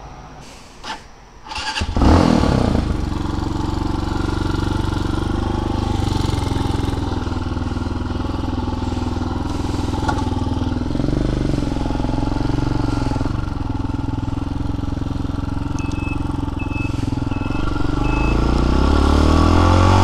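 TaoTao TBR7 dirt bike's small single-cylinder four-stroke engine starting suddenly about two seconds in, then idling steadily, and revving with rising pitch as it pulls away near the end.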